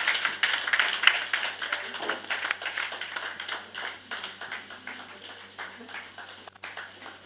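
Audience applauding, a dense patter of many hands clapping that dies away steadily over several seconds.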